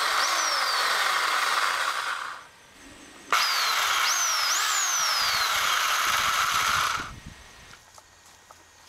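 Electric pole saw motor and chain spinning freely on its bar, switched on twice: a run of about two and a half seconds, a brief pause, then a run of nearly four seconds that stops abruptly.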